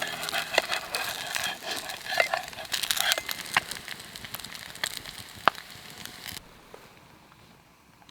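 Wood fire crackling and popping, dense for the first few seconds and then sparser, with one sharp pop about five and a half seconds in; the sound drops away suddenly after about six seconds.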